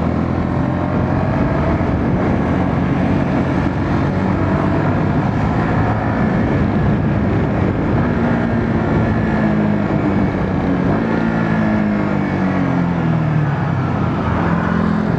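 Motorcycle riding noise picked up by a mic inside the rider's helmet: a steady rush of wind with the engine's hum underneath. The engine pitch rises and then falls again in the second half.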